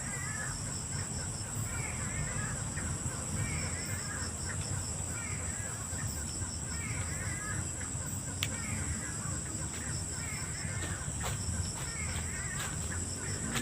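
A night bird calling over and over, a short chattering call repeated about once a second, over a steady high-pitched insect drone and a low rumble.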